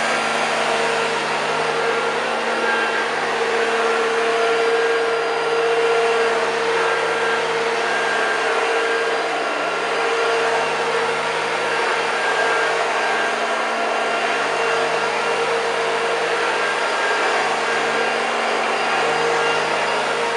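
1981 Hoover Junior U2128 upright vacuum cleaner running on carpet, its motor giving a steady high-pitched whine over a rush of air, with small rises and falls in level.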